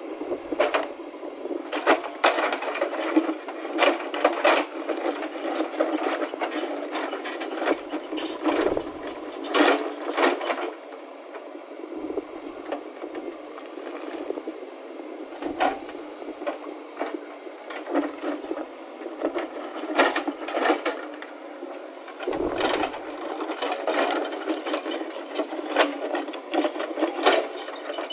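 JCB 3DX backhoe loader working its rear bucket through broken stone slabs, with repeated knocks, scrapes and clattering rubble over the steady running of its engine.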